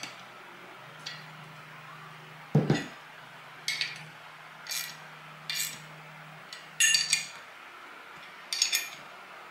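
A 10 mm open-end spanner clinking against the bolts and steel end plate of a Boss airbag assembly as the plate bolts are done up: short metallic clinks about once a second, with one heavier knock about two and a half seconds in.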